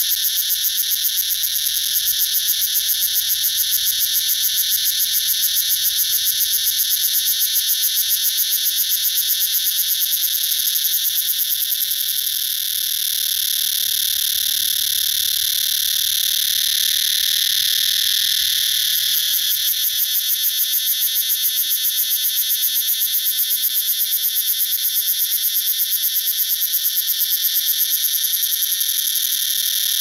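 Cicada singing: a loud, continuous, high-pitched buzz with a fast pulsing texture, dipping briefly about twelve seconds in.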